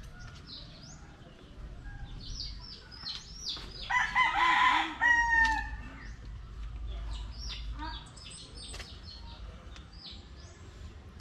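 A rooster crowing once, a long call about four seconds in that falls away at its end, over many small birds chirping.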